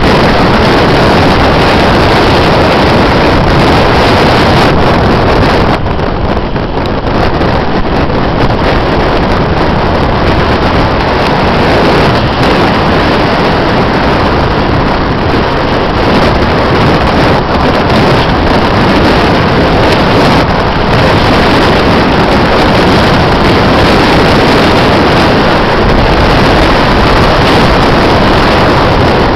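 Loud, steady roar of storm wind buffeting the microphone.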